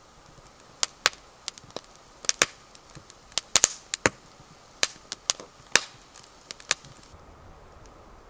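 Split logs burning in a stainless steel fire pit, crackling with irregular sharp pops and snaps, at times several a second. The crackling cuts off abruptly near the end.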